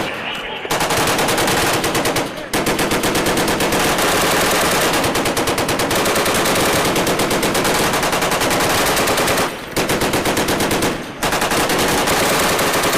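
Long bursts of rapid automatic gunfire, shots following each other too fast to separate, broken by a few short pauses between bursts.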